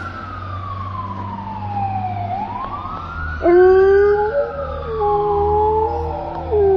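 A siren wailing slowly up and down, and from about halfway a dog howling along with it in long, steady notes.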